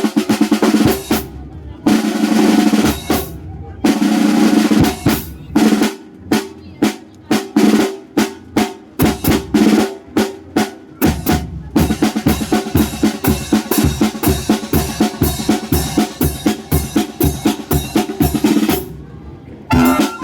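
Symphonic wind band playing a polka: held brass chords over snare-drum rolls and strikes, settling into a steady, quick beat, with a brief break near the end before the band comes back in.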